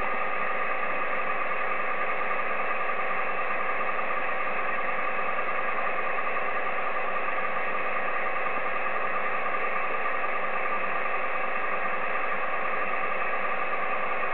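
Receiver audio from an Icom IC-7300 ham transceiver on the 10-metre single-sideband band: a steady hiss with several steady whining tones mixed in, and no voice.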